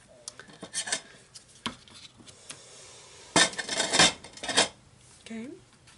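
Clinks, clicks and rattles of small craft supplies being handled on a desk, with a louder cluster of clatter a little past halfway.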